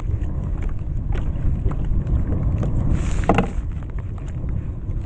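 Wind buffeting the microphone in a steady low rumble, with scattered small knocks and one brief louder sound a little over three seconds in.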